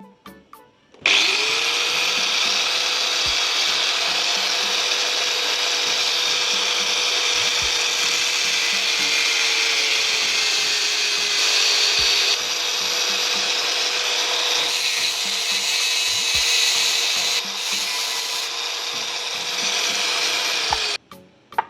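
An electric power tool runs continuously for about twenty seconds with a steady whine. It switches on abruptly about a second in and cuts off shortly before the end.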